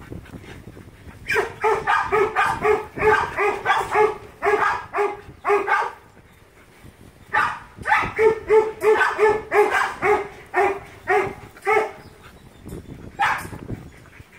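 A young dog barking during rough play-wrestling with another dog: rapid runs of same-pitched barks, about three a second, in two bouts a few seconds long with a short pause between.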